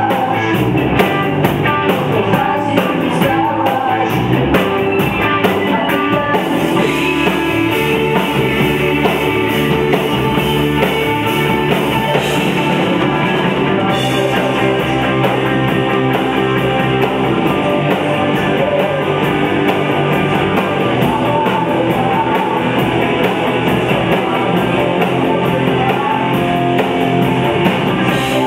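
Rock band playing live: electric guitars, bass and a drum kit, loud and continuous.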